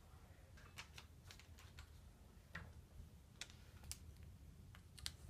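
Near silence with faint, irregular small clicks as a gloved hand handles a freshly wound wire coil spring on its rod.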